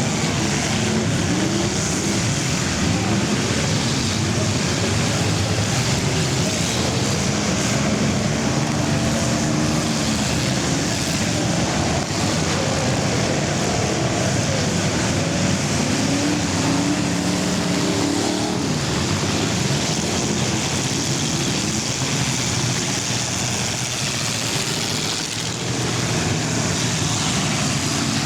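Several full-size car engines racing together in an enduro, their pitch rising and falling as the cars accelerate and lift off, over constant loud engine noise.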